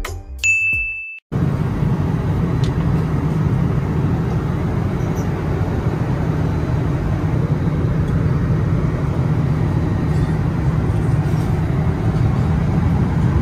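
A short high beep, then after a moment of silence the steady, even rumble and rush of airliner cabin noise inside the passenger cabin.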